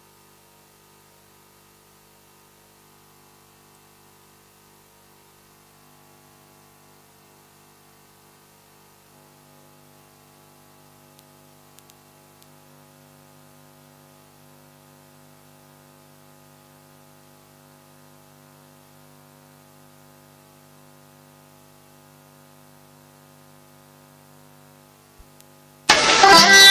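Faint steady hum with a few held tones from the stage sound system, then about 26 seconds in, recorded dance music starts loudly over the speakers.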